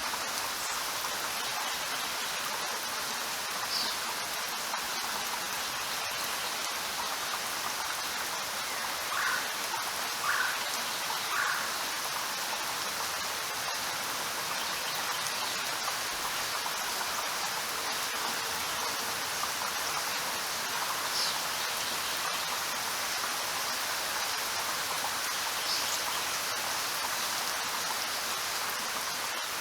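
Steady rain falling, an even hiss, with a few sharper drops now and then, three in quick succession about ten seconds in.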